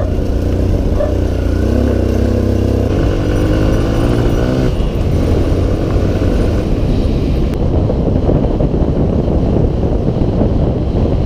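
Kawasaki KLX150 dirt bike's single-cylinder four-stroke engine running under way, its note climbing as it accelerates a few seconds in. Later the sound turns rougher and duller.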